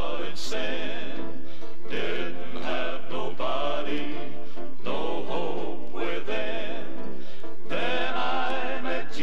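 Southern gospel male vocal quartet singing in harmony with instrumental backing and a steady bass line, playing from a 1970 vinyl LP.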